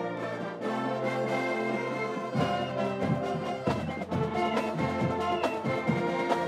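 A live pep band of saxophones, trumpets, trombones and sousaphones playing a tune. About two and a half seconds in, low bass notes and a beat join the sustained horn chords.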